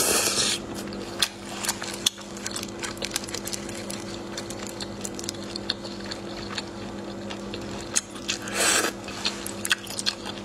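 Close-miked chewing and wet mouth sounds from eating spicy marinated shellfish: quick small clicks and smacks throughout, with two louder wet bursts, at the start and about eight and a half seconds in. A steady low electrical hum runs underneath.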